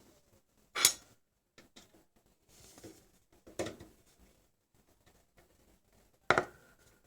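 Metallic knocks and clinks from handling parts in a computer case during a PC build. Two loud sharp knocks come about a second in and near the end, the second ringing briefly, with fainter clicks and rustles between them.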